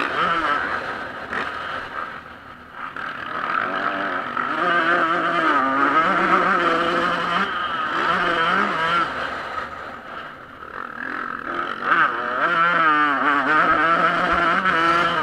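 Yamaha YZ125 two-stroke motocross bike engine racing, its pitch repeatedly rising and falling as the throttle is worked. It drops back twice, a couple of seconds in and again past the middle, before opening up sharply.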